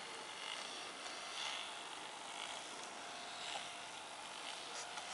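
Faint scraping and rubbing as the round display platform under the model building is turned by hand, coming in soft swells over a low hiss.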